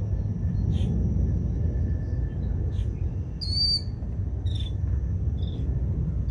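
River water rushing steadily, with birds calling over it in short high chirps every second or two and one louder, buzzier call about three and a half seconds in.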